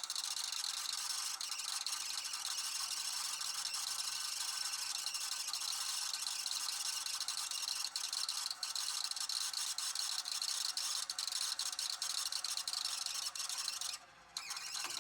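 VHS video recorder's tape transport whirring at speed, like a rewind or fast-forward, a dense hiss full of rapid ticks over a faint steady hum. It cuts off about fourteen seconds in, then starts again briefly just before the end.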